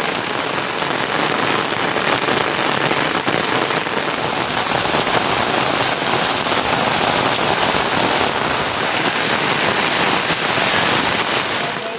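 Heavy rain falling, a loud, steady, dense hiss of countless drops hitting surfaces.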